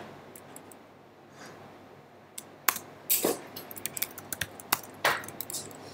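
Computer keyboard being typed on: short, irregular key clicks, starting about two seconds in.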